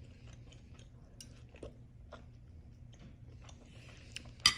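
A person chewing food close to the microphone, with small scattered mouth clicks over a low steady hum. A sharp click near the end is the loudest sound.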